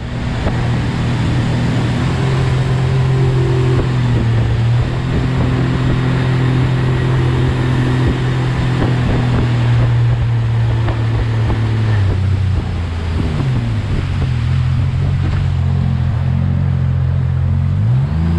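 Jet boat's outboard motor running steadily at speed, with water rushing past the hull. The engine note drops about twelve seconds in and dips briefly twice after that.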